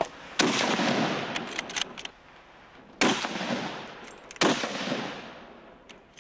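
Three gunshots, about 0.4 s, 3 s and 4.5 s in, each followed by a long fading echo.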